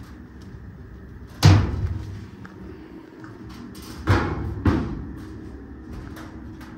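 Three heavy thuds with a short echo, about one and a half, four and four and a half seconds in, over a steady low hum.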